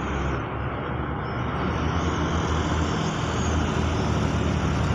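Tata 12-wheeler goods truck's diesel engine pulling up the road toward the microphone, growing slowly louder.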